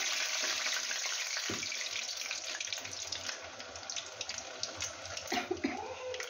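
Urad dal vadas deep-frying in a kadai of hot oil: a steady, dense sizzle with fine crackling pops.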